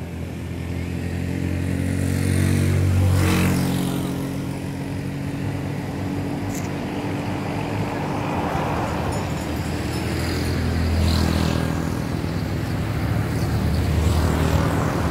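A motor vehicle engine runs steadily. It grows louder about three seconds in and again about eleven seconds in, as if vehicles are passing close by.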